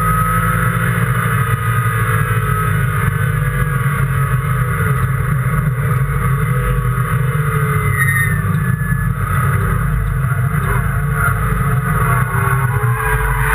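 Race car engine running under load at track speed, heard on board, its pitch slowly rising and falling with the throttle and gear changes.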